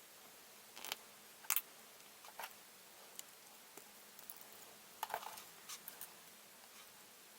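Sharp clicks and small clatters of plastic model-kit parts being handled, the loudest about a second and a half in and a quick cluster around five seconds in.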